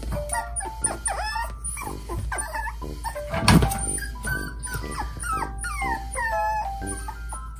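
Puppies whining and yipping in short, high, sliding cries, demanding to be let out of their pen, over light background music; one louder, sharper cry about three and a half seconds in.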